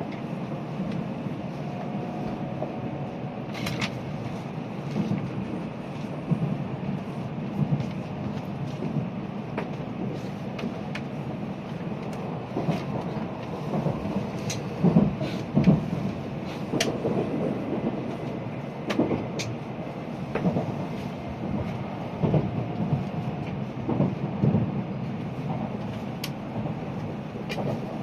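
Cabin noise of a Tokaido Shinkansen Nozomi train running steadily after leaving Nagoya station, with a faint motor whine edging up in pitch in the first few seconds as it accelerates. Occasional light clicks and knocks sound over the running noise.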